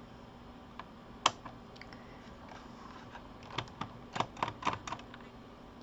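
Small sharp clicks and taps of a screwdriver and screws against a laptop's plastic case as screws are taken out: two single clicks, then a quick run of about eight near the end, over a faint low hum.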